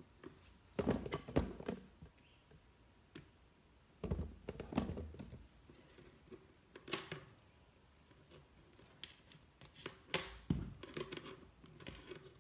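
Scattered clicks, taps and rustles of hands handling electrical wires and small parts, coming in several short clusters.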